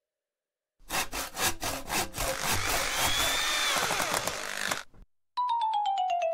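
Cartoon sound effect of Woodpecker carving a wooden flute: about a second in, a busy run of rapid wooden knocks mixed with sawing and scraping starts, lasts about four seconds and stops abruptly. Near the end a fluttering, pulsing tone begins, falling steadily in pitch.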